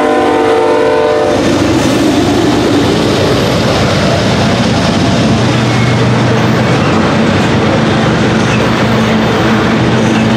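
A diesel locomotive horn sounding a held chord, cutting off about a second in. After it comes the steady rumble and clickety-clack of ethanol tank car wheels rolling past over the rails.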